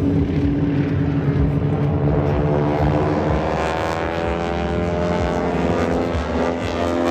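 Propeller airplane flying by at an airshow, its engine and propeller note bending in pitch as it passes, over a low rumble.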